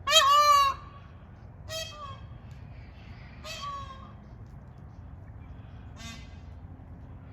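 Indian peahens honking contact calls, set off by a wheezing peachick that has lost its mother. There are four short honks: the first loud, then three fainter ones about two seconds apart.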